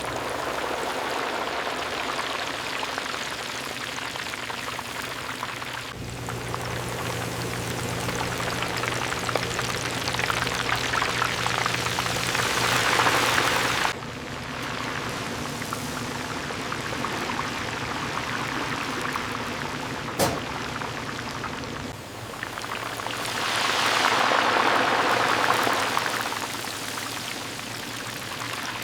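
Coated chicken deep-frying in hot oil: a steady sizzle like rain, swelling louder twice. A low hum sits under it for a stretch near the middle, and there is one sharp click a little past two-thirds of the way through.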